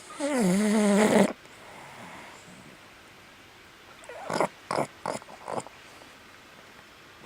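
Boston terrier giving one drawn-out vocal moan about a second long, falling in pitch and then holding steady. A few seconds later come a handful of short, quick snorts.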